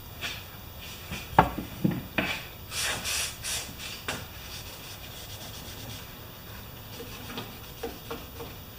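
Cleaning of a lawn mower's air filter assembly by hand: a sharp knock and a few more taps, then several scraping, rubbing strokes over about two seconds, followed by a few faint clicks of handling.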